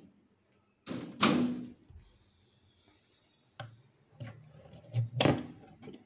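Knocks and bangs of a wooden box's hatch and metal latch being handled. There is a loud clatter about a second in, a couple of lighter clicks, and another loud knock near the end.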